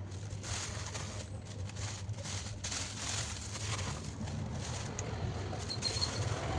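Wood-shaving hamster bedding rustling in a string of short, irregular swishes over a steady low hum.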